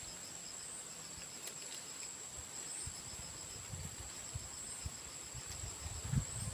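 Insects trilling steadily: a continuous high-pitched trill with a small lift about every two seconds, and a faster pulsing trill beneath it. Low rustles and knocks from handling close to the microphone.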